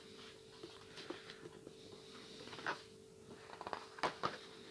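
Thin paper game maps being handled and unfolded by hand: soft rustling with a few sharp paper crinkles, the loudest about four seconds in, over a faint steady hum.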